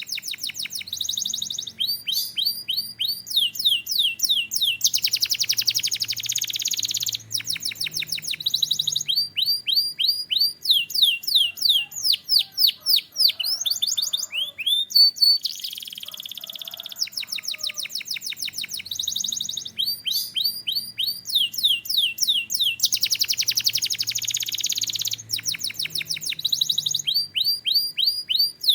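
A Belgian canary singing a continuous song: fast trills of quick, repeated falling notes, switching to a new trill every second or two, with a few denser, buzzy rolls in between.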